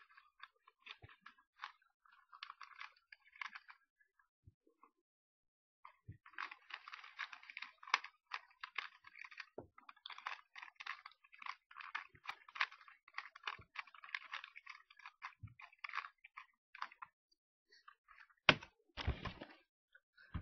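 Plastic Rubik's Cube layers being twisted by hand: quick runs of clicking and rattling, a pause of about two seconds, then a long stretch of steady turning. Two louder knocks come near the end.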